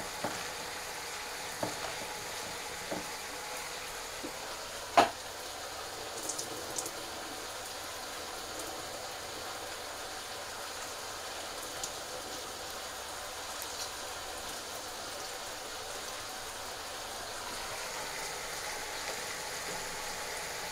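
Steady sizzling hiss of food frying in a pan on the stove. There are a few light clicks of kitchen handling, and one sharp knock about five seconds in.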